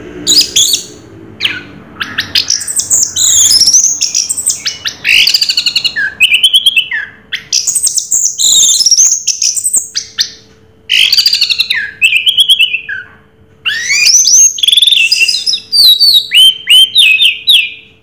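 Orange-headed thrush singing a loud, fast, varied song of high sweeping whistles, rapid trills and chattering runs of repeated notes, with two short breaks near the middle.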